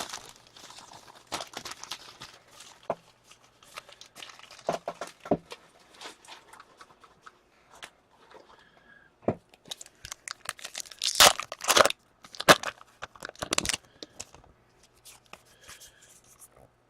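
Foil wrapper of an O-Pee-Chee hockey card pack being torn open and crinkled, with the cards slid out and handled. Irregular crackles throughout, with the loudest run of tearing and crinkling a little past halfway.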